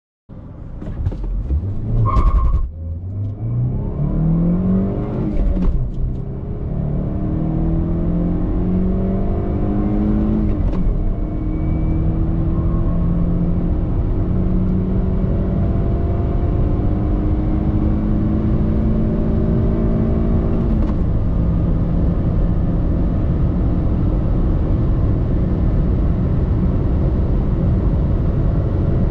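Toyota Corolla 1.6 Valvematic four-cylinder petrol engine heard from inside the cabin at full-throttle acceleration. The note climbs in pitch through each gear and drops at four upshifts, about two and a half, five and a half, ten and a half and twenty-one seconds in. Each gear is held longer than the last as the car gains speed.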